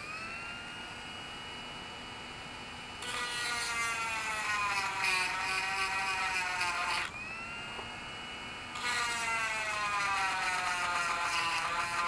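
Dremel rotary tool with a sharpening stone: a high motor whine running freely, then grinding against a chainsaw chain's cutter tooth about three seconds in. Under load the whine drops in pitch and a rasping grind joins it, easing off near the middle and starting again a couple of seconds later. This is the chain being touched up after it hit a rock.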